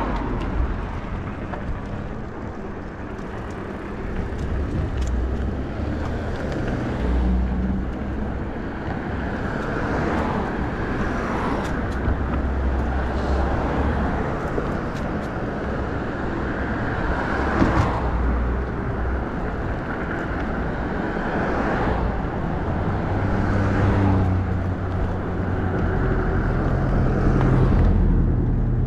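Riding noise from a Nakto F6 electric fat bike on the move: a steady rush of wind and rolling tyres with uneven low rumbling, broken by a few short knocks.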